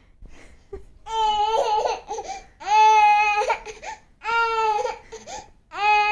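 A toddler crying: a run of drawn-out, steady-pitched wails, each about a second long, with short breaks between them. There are four wails, the last one starting near the end.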